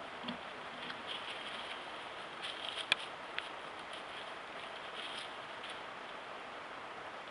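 Steady hiss of a trail camera's built-in microphone picking up outdoor ambience, with scattered faint ticks and rustles and one sharp click about three seconds in, followed by a weaker one half a second later.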